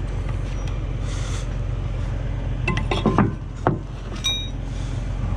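Engine idling steadily under a few metallic clanks about three seconds in, followed by a short ringing metal clink.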